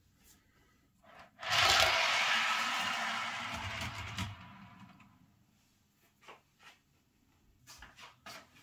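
An HO scale model covered hopper car rolling along freshly laid model railroad track. The rolling noise starts about a second and a half in, loudest at first, and fades out over the next few seconds as the car coasts away, with a few faint clicks near the end.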